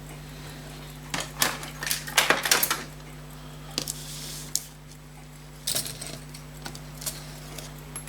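Small metal watch parts and tweezers clicking and rattling as a fusee pocket watch's chain and parts are handled on the bench: a quick run of clicks and clatter between about one and three seconds in, then a few single clicks. A steady low hum runs underneath.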